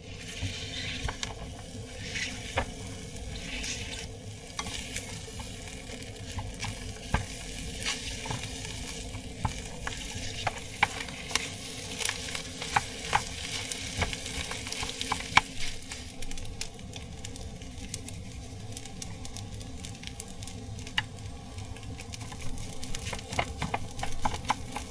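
Food sizzling in a frying pan, stirred with a utensil that clicks and scrapes against the pan at irregular moments.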